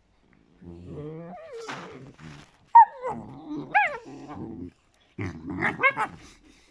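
Leonberger puppies play-wrestling and vocalizing: low growls mixed with high yips and whines that slide up and down in pitch, with short pauses between.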